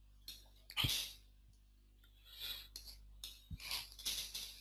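Faint computer keyboard typing: a few short scattered runs of key clicks.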